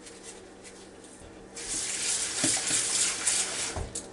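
Kitchen faucet turned on about a second and a half in, water running hard into the sink to rinse venison cube steak.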